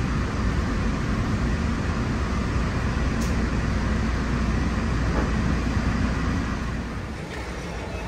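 Walt Disney World monorail heard from inside the cabin as it rolls into the station: a steady low rumble with running noise, easing off about seven seconds in.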